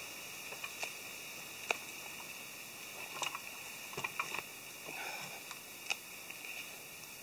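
Quiet forest ambience: a steady hiss with scattered light ticks and small rustles.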